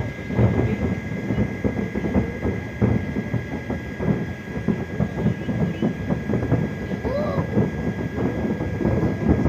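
Distant fireworks display: a continuous rumble of many overlapping bangs and crackles.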